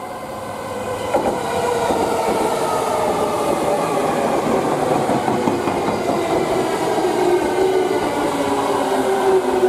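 Electric train running through the station, growing louder over the first couple of seconds. Its motor whine falls slowly in pitch as it slows, with a few knocks from the wheels over the track.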